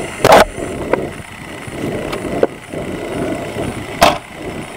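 Body-worn camera rustling against clothing and the patrol car, with two loud bangs, one just after the start and one near the end, the second the patrol car's rear door being shut.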